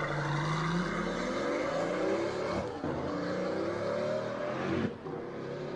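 Recorded sound of a Pagani Huayra BC's Mercedes-AMG twin-turbo V12 revving, its pitch climbing steadily for nearly five seconds, then falling off sharply near the end as the throttle closes.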